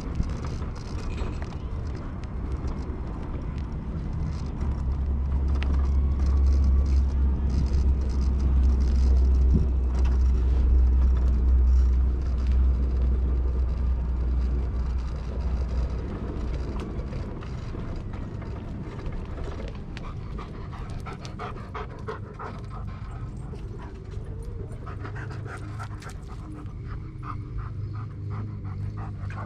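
A dog panting close to the microphone, over a heavy low rumble that swells from about four seconds in and eases off by about sixteen seconds.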